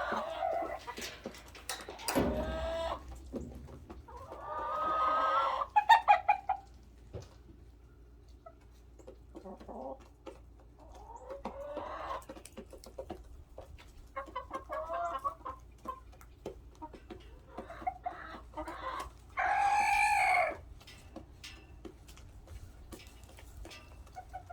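Backyard hens clucking and calling on and off, with many small clicks between calls. The loudest moments are a quick run of calls about six seconds in and a long arching squawk about twenty seconds in.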